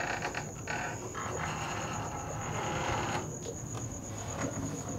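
A cricket chirping in a steady high trill, with a soft breathy hiss rising over it for a couple of seconds after about a second in.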